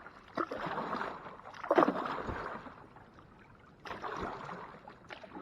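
Kayak paddle strokes splashing and swishing through the water, three of them about two seconds apart, the middle one the loudest.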